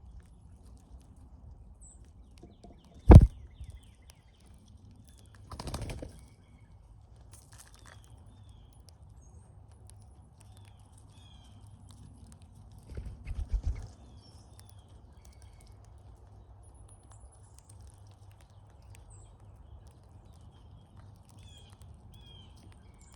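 Cowbirds at a feeder: faint, scattered short chirps and whistles, with a sharp knock about three seconds in, a brief flutter around six seconds, and a few low thumps around thirteen seconds as birds land and shift on the feeder.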